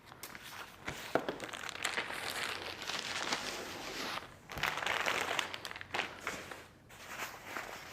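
Rustling and crinkling as a folded jacket and its packaging are unfolded and handled, in uneven bursts with small crackles.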